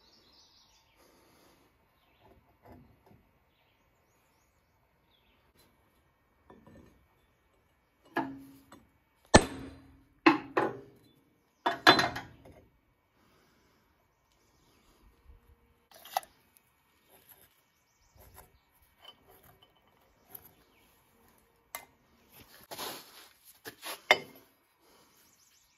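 Heavy steel tooling blocks and plate being handled on the press frame: a cluster of loud metal clanks and knocks with a short ring, about a third of the way in, then scattered light clicks, and scraping on the steel plate with a couple of knocks near the end.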